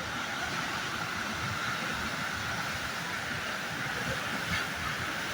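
Tidal bore on the Ganges, a wave of water surging upriver with a steady rushing noise.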